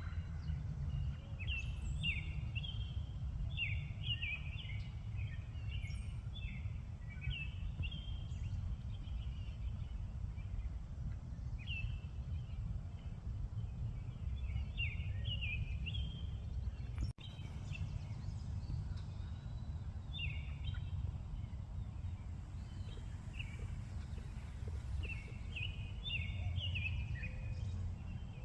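Bird calling in short repeated phrases of quick high chirps, with pauses between phrases, over a steady low outdoor rumble such as wind.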